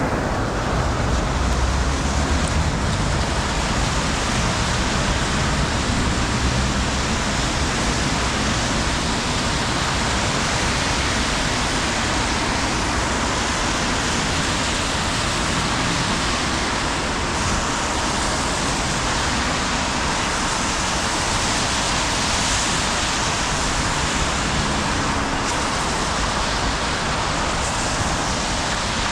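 Steady rain hiss on a city street, mixed with the low rumble of road traffic, which is heavier in the first several seconds.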